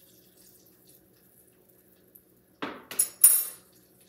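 Kitchen dishes and utensils clattering: a quick run of knocks about two and a half seconds in, then two bright ringing clinks of metal or dishware.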